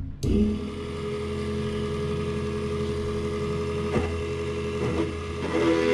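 Small electric motor of a homemade drill rig switched on, running with a steady hum. A wooden dowel is pressed onto the spinning drill bit, giving a couple of short knocks near the end.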